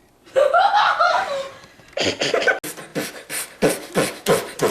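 A person's voice making mouth sounds: a short sung or wailed phrase, then a run of rhythmic beatboxing-style mouth percussion at about three beats a second.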